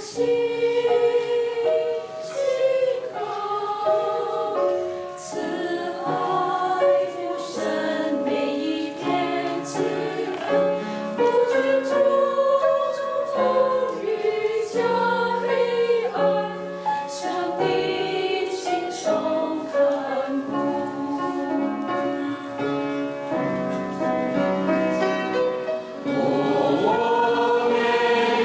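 Choir singing a sacred, gospel-style song in sustained chords that change every second or so.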